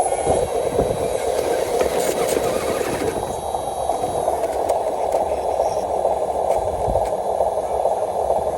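Radio-controlled model truck running, its small electric motor and gears giving a steady whir, with scattered low knocks and scraping.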